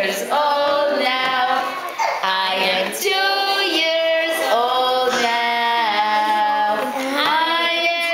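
Women and young children singing a birthday song together in phrases of held notes, sung to a toddler in front of a cupcake with two lit candles.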